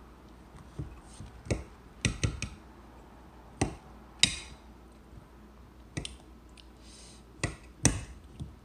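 Forks clinking and tapping against a bowl and a plate while eating: about ten sharp, irregular clicks.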